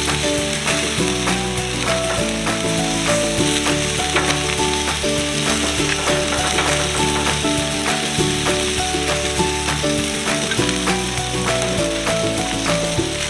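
Instrumental background music with a steady beat, over the steady sizzle of barbecue-sauced chicken thighs cooking on a gas grill.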